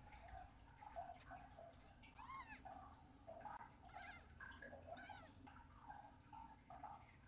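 Newborn Ragdoll kittens mewing faintly while nursing: a run of small, irregular squeaks, with a few louder, higher mews in the middle that rise and fall.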